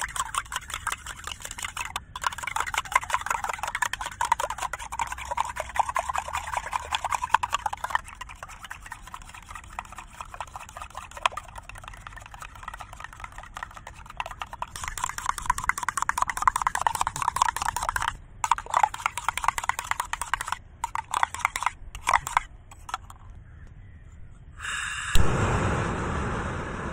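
A spoon rapidly beating eggs in a stainless-steel tumbler, a fast, continuous clatter of metal against metal that breaks into shorter spells near the end. About 25 s in, a gas stove burner lit with a lighter catches with a sudden loud whoosh and then burns with a steady rushing sound.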